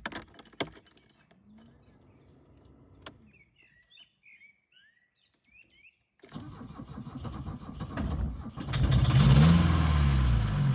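A VW Passat B2's 1.6-litre four-cylinder diesel is cranked and started about six seconds in, catches, revs up and drops back as it settles to idle. It starts on the diesel still left in the fuel filter, not yet on the cooking oil. Before the start a few clicks and faint bird chirps are heard.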